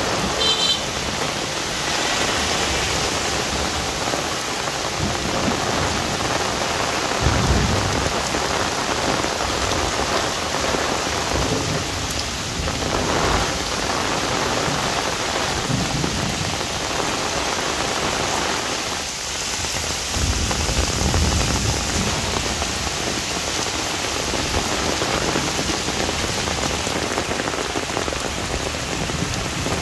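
Heavy rain falling steadily on an umbrella and the ground around it, with a few brief low rumbles.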